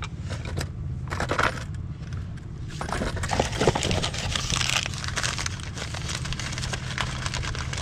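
Light metallic clinks and scraping as brake pads and their clips are handled at the caliper bracket, over a steady low hum.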